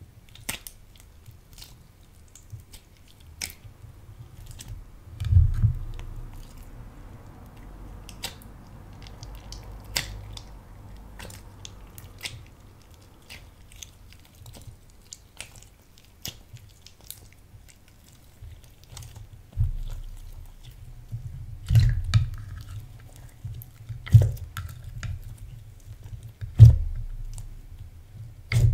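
Clear slime being squeezed and kneaded by hand in a glass dish, with chunks of lipstick and crumbled eyeshadow worked into it: many sticky clicks and pops, and a few louder low thuds, the strongest near the end.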